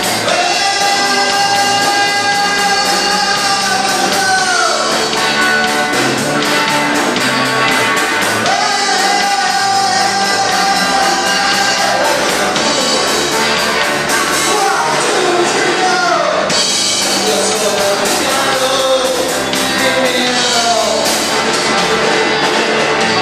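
Amateur rock band playing live: electric guitars and a drum kit under a lead line of long held notes, each falling away in pitch as it ends.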